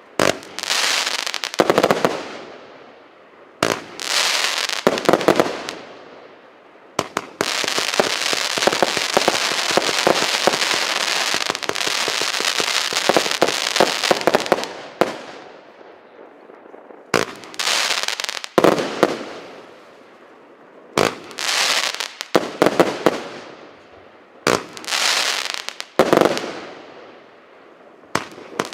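A 123-shot consumer fireworks cake, 0.6 to 1.2 inch calibres, firing. Single shots come every one to two seconds, each trailing off over a second or so. About a quarter of the way in they run together into a dense, continuous volley that lasts roughly eight seconds, then separate shots resume.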